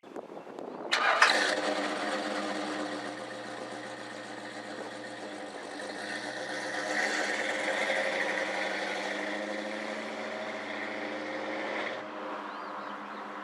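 1969 Lincoln Mark III's 460 V8 catching about a second in on its newly installed carburetor, then running steadily, a little louder for a few seconds in the middle and quieter near the end.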